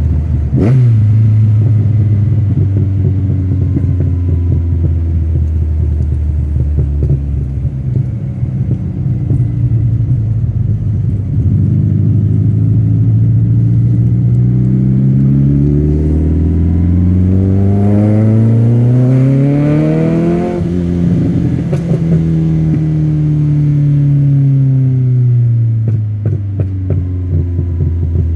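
Car engine revving sharply once just after the start, then pulling with a slowly falling pitch. It climbs steadily for about eight seconds as it accelerates, drops away suddenly about two-thirds through with a few crackles, and winds down to a lower steady note.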